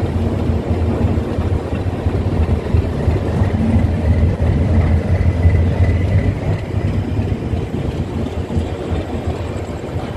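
Diesel locomotive engine running close alongside a slowly departing train: a low drone that swells about halfway through, then fades as the locomotive falls behind, over the train's own rolling noise.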